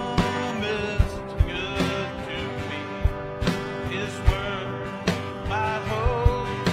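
Live worship band playing a hymn: electric Fender Telecaster and acoustic guitar together over a steady beat.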